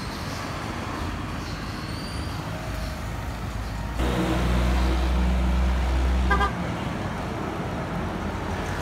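Road traffic going by, with a heavy motor vehicle passing close: its low engine rumble swells loud about four seconds in and drops away after a couple of seconds. A short horn beep sounds near the end of the pass.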